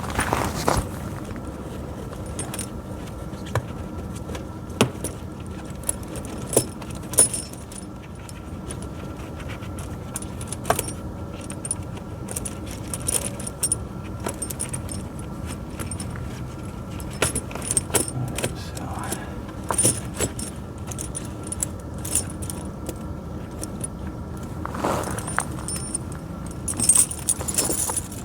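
Steel links of a pewag Doppelspur tractor tire chain clinking and jangling irregularly as they are handled and pulled into place on the tire, over a steady low hum.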